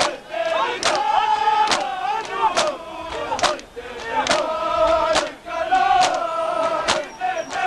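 A large crowd of men chanting in unison while beating their chests together (matam), the collective slaps landing in an even rhythm a little under once a second.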